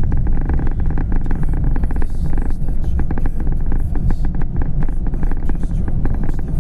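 Car driving along a highway, heard from inside the cabin: a steady low rumble of road and engine noise with many quick ticks and rattles throughout.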